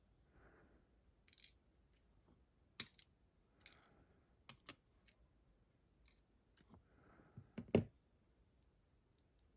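Zeiss Ikon SK6 lock cylinder being taken apart with a follower: small metal pins and wafers clicking and clinking as they drop and are handled. A scatter of sharp ticks, the loudest a little under eight seconds in.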